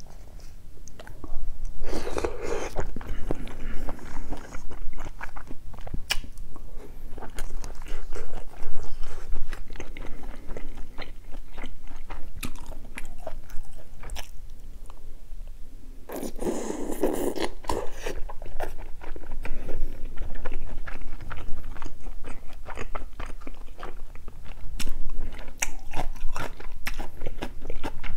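Close-miked chewing of spicy stew and chewy rice cakes (tteok): wet mouth sounds with many small clicks, and two louder, longer stretches, about two seconds in and about halfway through.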